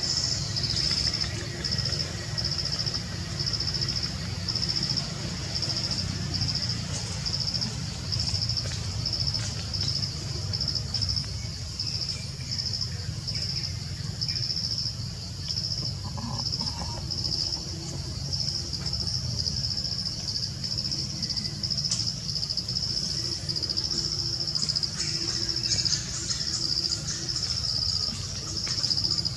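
A high-pitched insect call repeating in even pulses, over a steady low rumble.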